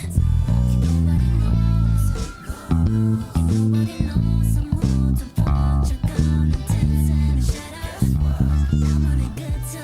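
Ibanez BTB866SC six-string electric bass playing a rhythmic line of short, separated notes over a backing track with drums.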